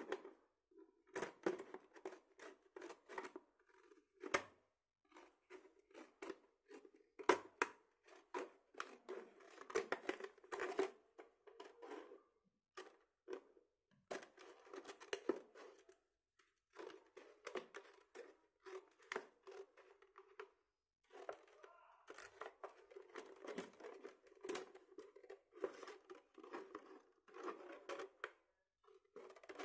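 Scissors snipping through the thin wall of a plastic bottle while cutting it into strips. The snips come in quick runs with short pauses, and the plastic crinkles along with them.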